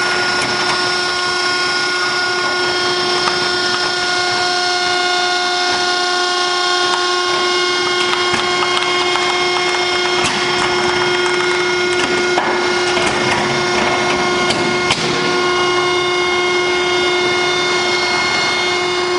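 Hydraulic power unit of a REC7242 TB tire baler running under load with a steady, high whine while the ram is raised to eject a strapped bale of compressed tires. Scattered creaks and cracks from the bale and frame come through over it.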